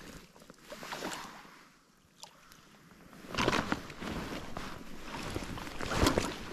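Water splashing and sloshing in irregular bursts, with a quieter lull about two seconds in and louder splashes from about three and a half seconds in and again near the end.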